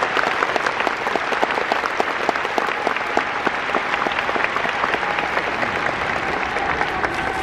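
Large stadium crowd applauding: many hands clapping at once in a steady, dense patter.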